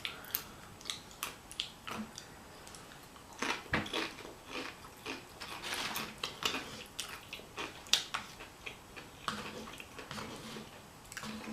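Close-miked chewing and mouth sounds of a person eating a burrito bowl, with many short wet clicks and smacks scattered irregularly throughout.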